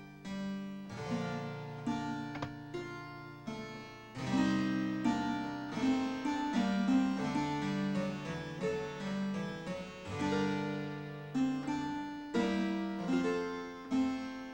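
Background score music: a slow melody of separate notes, each starting sharply and fading, over held low notes.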